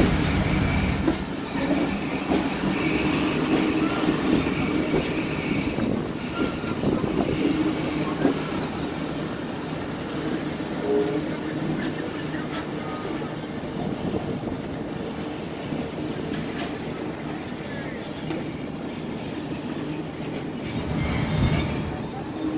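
Passenger train's running rumble with a high, steady metallic squeal from the wheels as the train brakes and slows to a stop at a station. The squeal is strongest in the first few seconds and the rumble grows quieter as the train slows.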